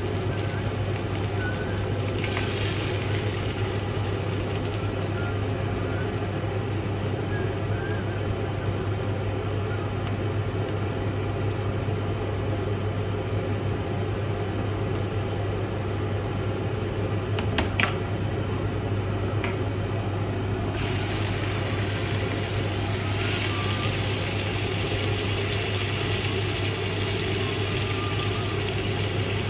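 Duck frying in a pan, a steady sizzle with a constant low hum underneath. A couple of sharp utensil clicks sound just before and after the 18-second mark.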